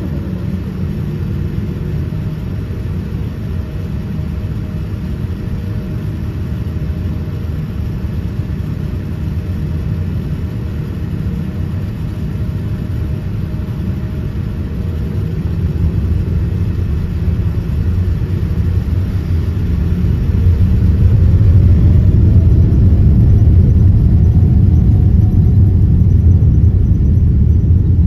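Boeing 787-10's GEnx-1B jet engines heard through the cabin as a steady low rumble while the airliner taxis. About two-thirds of the way through it grows louder, with a rising whine as the engines spool up.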